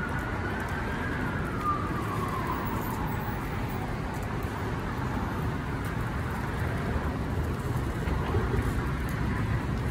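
Steady street traffic rumble. A faint siren in the first few seconds rises a little in pitch, then falls away.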